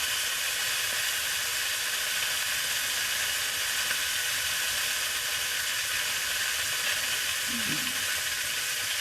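Sausages sizzling steadily as they fry in a pan.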